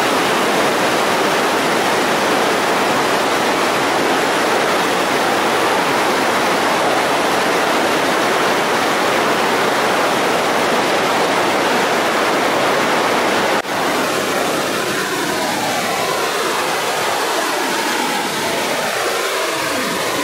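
River whitewater rapids rushing in a loud, steady wash of churning water. A brief dip about two-thirds of the way through, after which the water sounds a little lighter.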